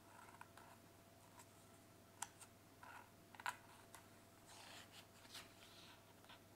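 Near silence with a few faint clicks and a soft paper rustle from a hand handling the pages of a picture book.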